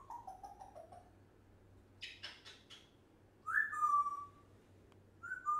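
African grey parrot vocalising: a short wavering phrase that falls in pitch, a harsh raspy chatter about two seconds in, then a loud whistle that drops and holds, repeated more briefly near the end.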